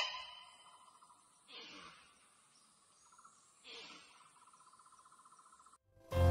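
Muntjac (barking deer) barking: a sharp call right at the start, then two short barks about two seconds apart, over a steady buzz of insects. Music starts right at the end.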